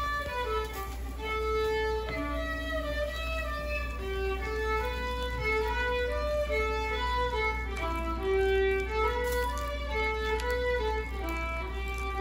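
Background music: a violin melody of held notes moving up and down.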